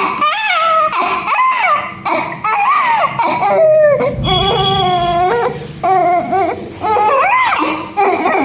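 Newborn baby crying: a string of short, high wailing cries that bend up and down in pitch, with one longer, steadier cry about halfway through.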